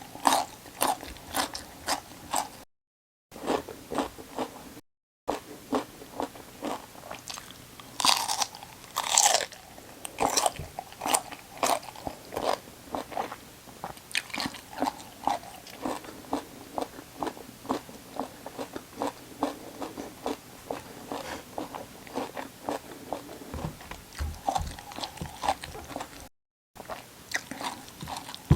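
Close-miked crunching and chewing of raw vegetables, a run of crisp crunches about two to three a second, with louder bites about eight and nine seconds in. Three brief drops to dead silence interrupt it.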